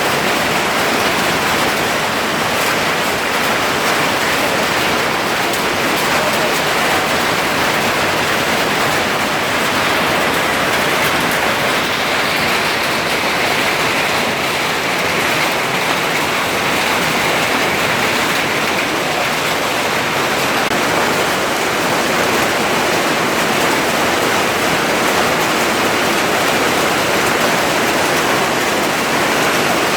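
Hail storm: hailstones and rain beating down in a steady, dense hiss, peppered with fine clicks of individual impacts.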